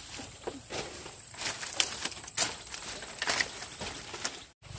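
Dry palm-leaf thatch rustling and crackling as a bundle is handled and laid over a bamboo frame, with irregular sharp crackles. The sound breaks off briefly near the end.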